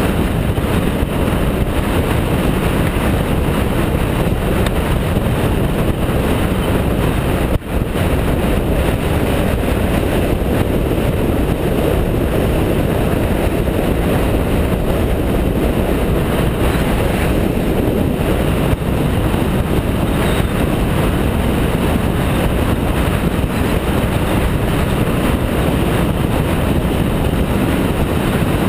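BMW F650GS motorcycle cruising at steady speed: a constant rush of wind noise mixed with engine and road noise, dipping for an instant about eight seconds in.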